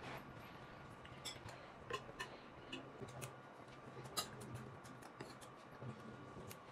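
Spoon and fork clicking lightly against a ceramic bowl while eating, a dozen or so scattered faint clinks over a faint steady hum.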